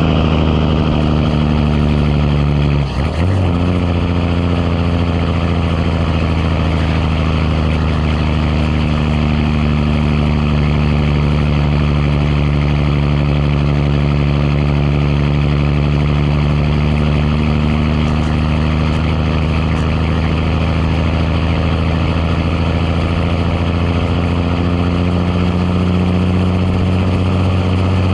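Big Cam Cummins inline-six diesel in a 1986 Ford LT9000 running steadily under load while hauling. There is a brief dip about three seconds in; after that the engine note slowly falls, then climbs again near the end.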